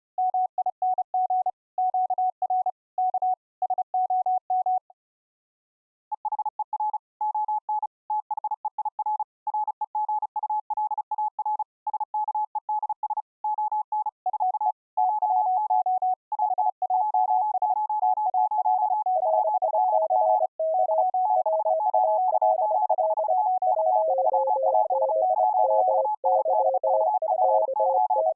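Morse code (CW) sent as clean keyed sine tones from software CW keyers, each operator at its own pitch. One operator sends alone for about five seconds, there is a short pause, then a second operator at a slightly higher pitch. About halfway through, further operators join at lower pitches, until three or four streams of dits and dahs overlap.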